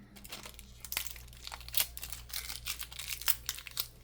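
Rapid, irregular crackling and small clicks of a phone battery being pulled free against its adhesive, over a faint steady low hum.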